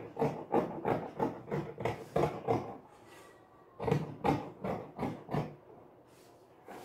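Dressmaking scissors snipping through cloth, about three cuts a second, in two runs with a pause of about a second between them.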